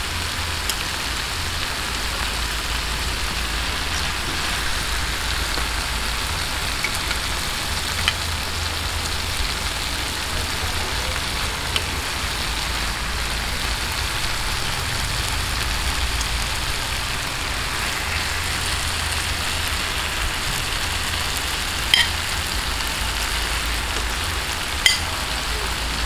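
Tomato sauce and fried milkfish pieces sizzling in a frying pan, a steady rain-like hiss over a low steady hum, with a few light clicks.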